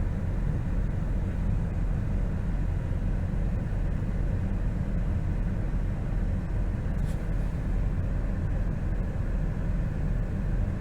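Steady low drone of a 4x4's engine and tyres heard from inside the cab while driving slowly, with one faint tick about seven seconds in.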